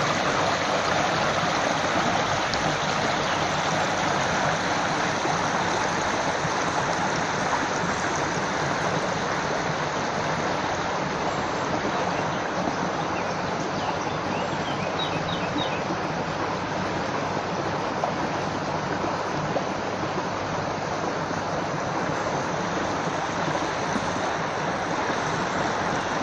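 Running water, flowing steadily like a stream, with a few faint short bird chirps about halfway through.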